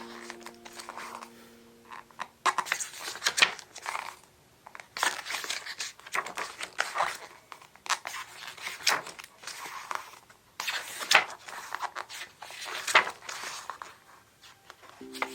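Packaging being handled by hand: repeated crinkling and tearing of wrapping in irregular bursts. Background music fades out a couple of seconds in.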